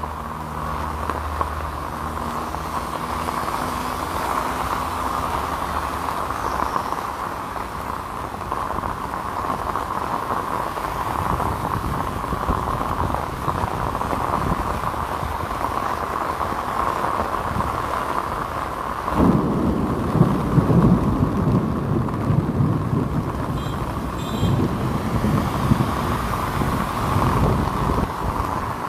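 Heavy rain pouring down with a steady hiss, and a vehicle engine humming for the first few seconds. About 19 seconds in, louder, uneven drumming starts, which fits rain beating on an umbrella held overhead.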